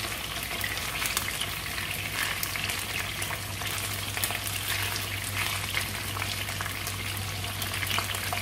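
Pieces of red snapper head shallow-frying in oil in a non-stick wok as they brown: a steady sizzle with many small crackling pops of spitting oil. A low steady hum runs underneath.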